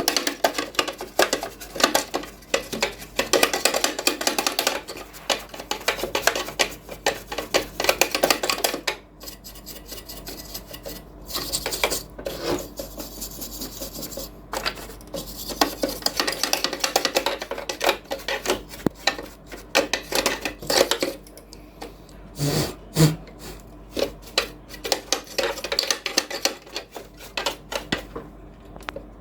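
Scraping and rubbing on a hard surface in long bursts with short pauses, with a few sharp clicks near the end.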